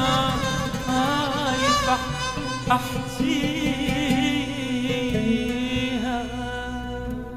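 Middle Eastern music with an ornamented, wavering melody over a sustained low drone, slowly fading out toward the end.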